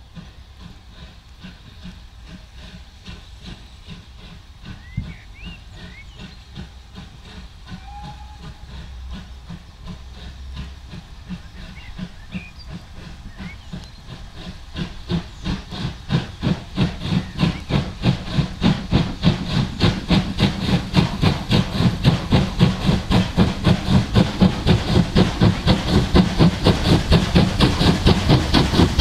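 Two steam locomotives double-heading a passenger train, a USATC S160 2-8-0 leading and a Bulleid Merchant Navy Pacific behind, working hard up from a standing start. Their exhaust beats come in as a rapid, even chuffing about halfway through and grow steadily louder as the train approaches. Faint birdsong is heard in the quieter first half.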